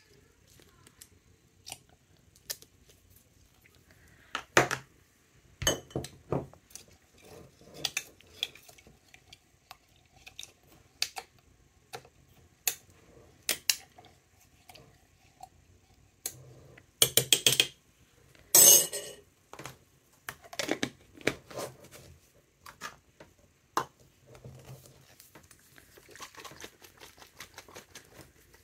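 Scattered clinks, taps and knocks of a glass jar and small bottles handled on a desk, with soft rustling as fabric scraps are pressed into the jar of coffee dye. Two louder scrapes, each about a second long, come a little past the middle.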